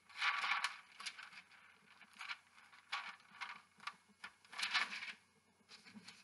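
Parchment paper rustling and crinkling in several short bursts under hands pressing and patting pastry dough flat on it, loudest at the start and again about four and a half seconds in.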